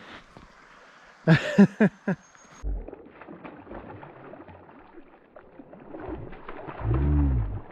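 A man's wordless cry about a second in and a long low groan near the end, with rustling and handling noise between, reacting to a trout that has just come off at the shore.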